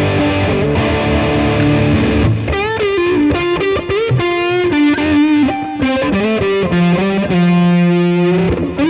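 Electric guitar played through an OCD-style germanium overdrive pedal with its distortion knob all the way up on the high-pass setting, into a Roland Blues Cube Artist amp. It plays distorted chords for about the first two seconds, then a single-note lead with string bends, ending on a long held note with vibrato.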